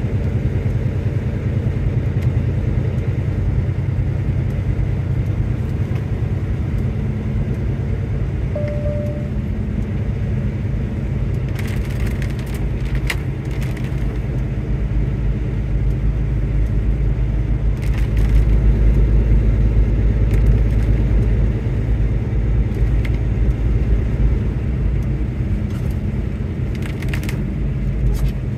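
Car driving on a wet road, heard from inside the cabin: a steady low rumble of engine and tyres on wet pavement, growing a little louder about two-thirds of the way through, with a few short noises here and there.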